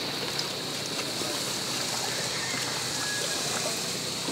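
Steady wash of water against a small wooden outrigger boat moving through shallow seawater.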